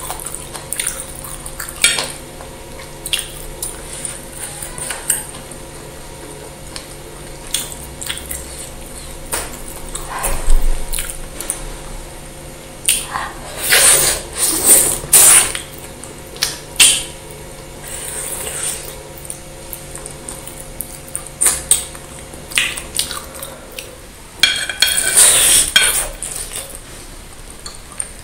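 Metal spoon and fork clinking and scraping against a plate of meatball soup in scattered sharp clicks, with close eating sounds in between.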